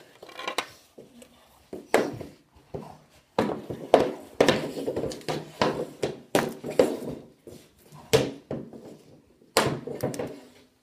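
Hockey pucks being shot with sticks: about ten sharp cracks and thuds spread through, with a short echo after each, from stick blades striking pucks and pucks hitting hard surfaces in a small concrete-walled basement.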